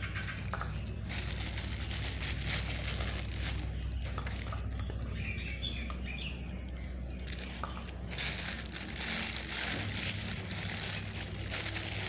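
Clear plastic bag crinkling and rustling as a spoon scoops a mash of banana and fish-pellet feed into a small plastic cup.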